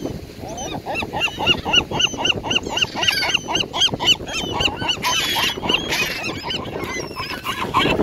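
Gulls calling in a fast run of repeated yelping calls, about four a second, as they squabble over food, followed by harsher squawks in the second half.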